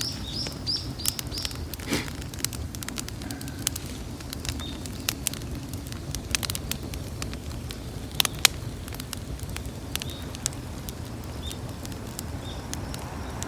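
Bonfire of garden waste crackling, with sharp pops at irregular intervals. A bird chirps a quick run of high notes in the first second or so.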